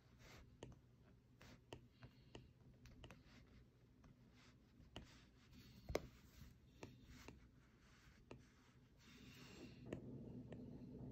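Faint, irregular taps and strokes of a stylus on an iPad's glass screen while drawing, with one louder tap about six seconds in.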